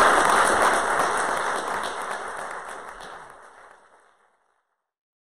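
Audience applauding, fading out steadily and gone by about four seconds in.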